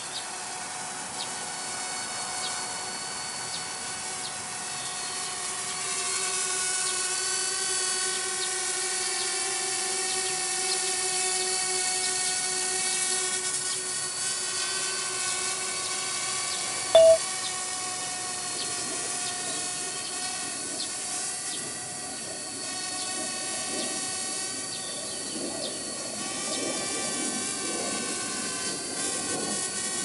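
Parrot Bebop quadcopter's propellers giving a steady whine in flight, its pitch wavering slightly. A short, loud beep cuts in about halfway through.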